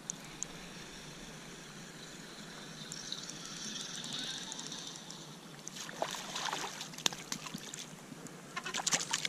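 Water splashing as a hooked smallmouth bass is drawn to the surface and landed by hand, with a cluster of splashes about six seconds in and another near the end.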